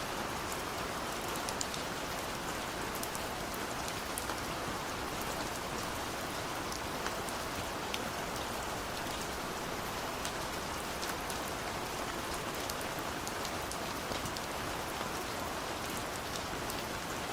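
Steady rain falling on a surface, an even hiss with many small drop ticks scattered through it.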